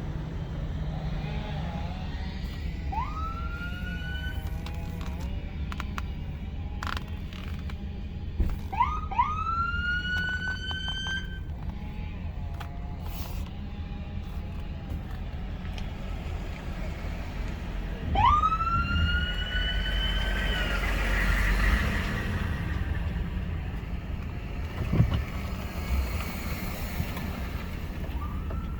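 Emergency vehicle siren giving several short whoops, each a quick rise in pitch that then levels off, over a steady low vehicle rumble.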